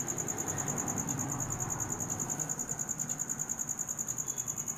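Cricket chirping in a steady, rapid, high-pitched pulsing trill.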